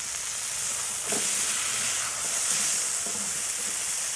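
Steak sizzling in a frying pan on a wood-burning camp stove as it is lifted and turned with tongs. The hiss is steady and grows a little louder about a second in.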